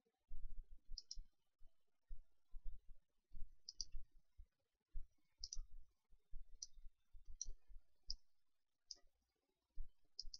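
Computer mouse buttons clicking, about a dozen sharp clicks at an uneven pace, several of them quick double clicks, with soft low thumps of the mouse being handled on the desk.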